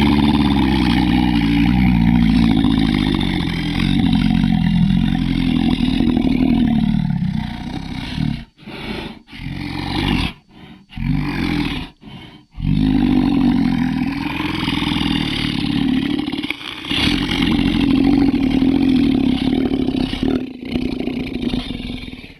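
Monster roar sound effect: long, deep, growling roars, broken by a few short pauses about halfway through, then running on until they cut off abruptly at the end.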